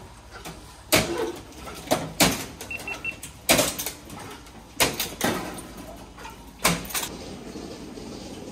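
Milking clusters knocking against the parlour's stainless-steel rail and holders as they are handled, about seven sharp clanks spaced unevenly. Three quick short beeps from the parlour equipment sound about three seconds in, over a steady low hum.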